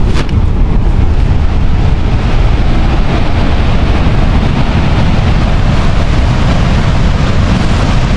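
Loud, steady rushing noise of heavy rain, with wind buffeting the microphone.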